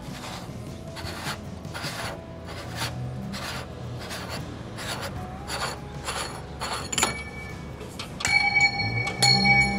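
Plastic scraping and rasping, repeated in short strokes, as the housing of an Alarm.com ADC-VC838PF dome security camera is twisted by hand onto its mount.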